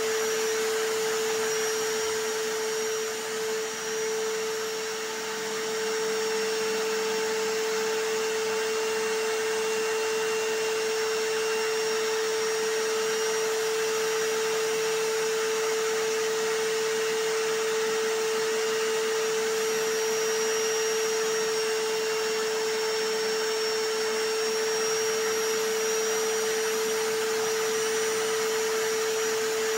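Vacuum cleaner running steadily: a constant hiss with a strong, steady hum-like whine. The level dips briefly about three to five seconds in, then holds.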